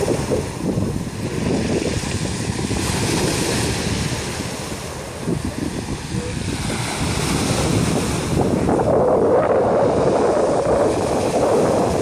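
Sea waves breaking and washing up a pebble shore in a continuous rush that swells and eases, louder in the last third, with wind buffeting the microphone.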